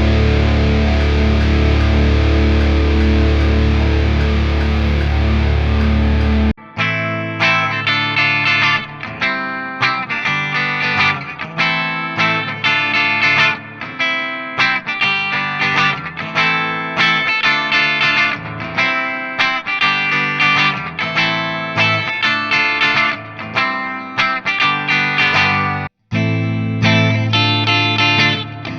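Squier Affinity Telecaster Deluxe electric guitar, with its twin humbuckers, played through distortion: a sustained distorted chord rings for about the first six seconds, then cuts off abruptly into a long run of picked single notes, with a brief break about 26 seconds in.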